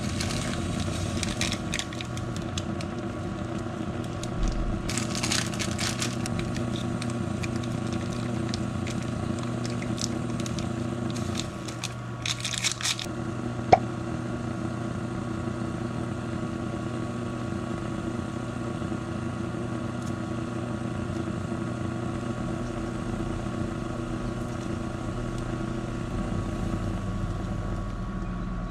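Plastic instant-noodle packaging crinkling as it is handled and torn, in clusters in the first few seconds, around five seconds in and again around eleven to thirteen seconds in, over a steady machine hum. One sharp snip of kitchen scissors comes about fourteen seconds in.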